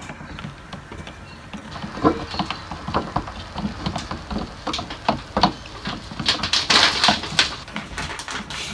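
Wooden paddle-pop stick stirring melted soy wax in a bowl, with irregular clicks and taps against the bowl's sides that start about two seconds in and come thicker near the end.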